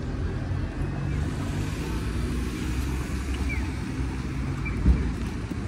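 Street traffic noise: a steady low rumble of passing vehicles, with a single thump about five seconds in.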